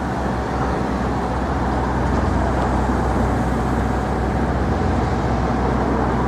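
Steady city street traffic noise with a low engine rumble from passing and idling vehicles.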